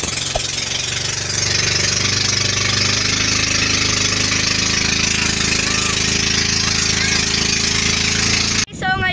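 Engine of a motorized outrigger boat (bangka) running steadily under way, with water rushing and splashing along the hull. It cuts off suddenly near the end.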